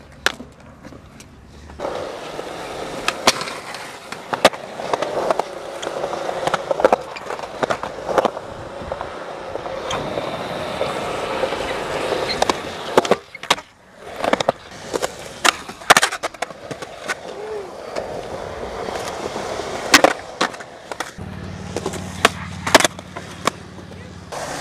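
Skateboard wheels rolling over concrete with a steady rumble, broken by many sharp clacks and knocks of boards hitting the ground.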